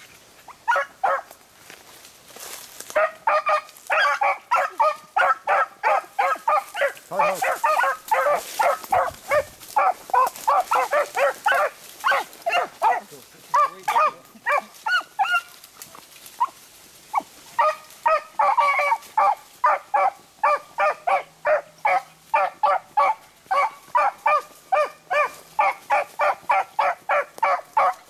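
Beagles baying in a fast, steady chop of short yelping bays, about two to three a second, the hounds giving voice as they trail a rabbit by scent. The baying starts about a second in and breaks off briefly about halfway before picking up again.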